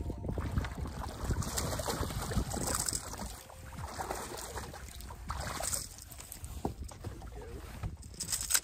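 Wind on the microphone and water against a bass boat's hull while a small bass is reeled in and brought aboard, with scattered clicks and knocks of handling. The loudest is a sharp knock near the end.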